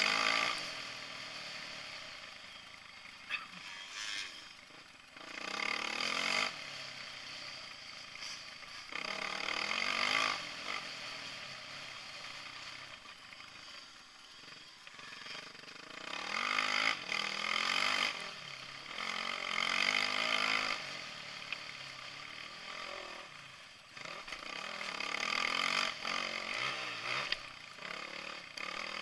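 Dirt bike engine heard from the bike itself, revving up and down in repeated surges as the throttle is opened and closed through corners and straights, over a steady rush of riding noise. The longest and loudest run of revving comes in the second half.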